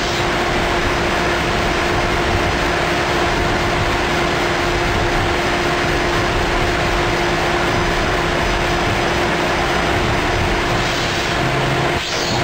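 Johnford SL-250-2SD CNC slant-bed lathe running: a steady machine hum and hiss with a constant mid-pitched whine.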